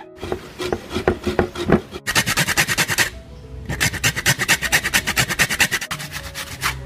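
Background music: sustained low tones under a fast, even, scratchy rasping percussion beat.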